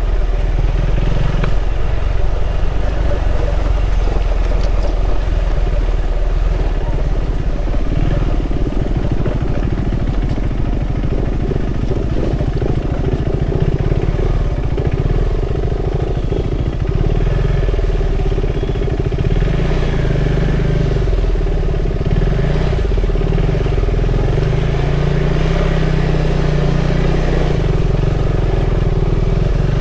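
KTM 390 Adventure's single-cylinder engine running steadily at low speed on a rough dirt track, its revs rising and falling a little in the second half.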